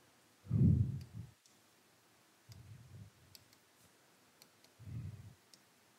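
Faint light clicks and taps of a stylus on an interactive display board during writing, scattered irregularly. Three short, low, soft sounds come in among them, the loudest about half a second in and the others near three and five seconds.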